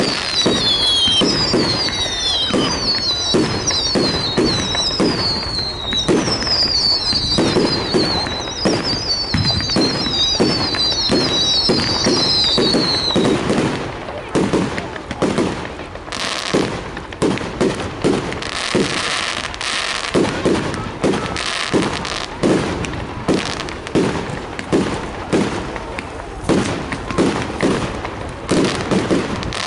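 Fireworks going off: a run of overlapping high whistles, each falling in pitch, for about the first half, then a string of sharp bangs, roughly one or two a second, with crackling between them.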